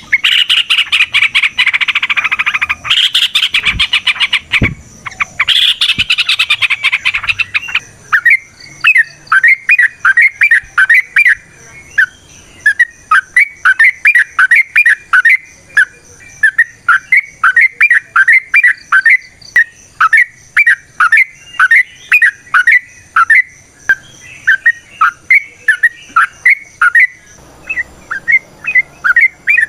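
Yellow-vented bulbul (trucukan) singing: a loud run of rapid chattering notes for the first several seconds, then a steady series of short, clear notes at about two to three a second. A faint steady high insect trill runs underneath.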